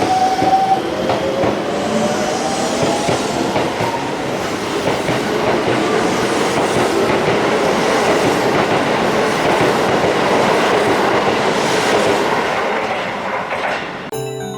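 Keisei 3700 series electric commuter train pulling out and gathering speed: a rising traction-motor whine at first, then the steady rumble and rail joint clatter of the cars rolling past. Near the end it fades away.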